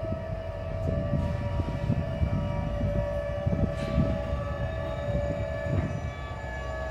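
Slow-moving freight train: a steady metallic squeal of several tones from its wheels, over a low rumble with irregular clanks from the cars.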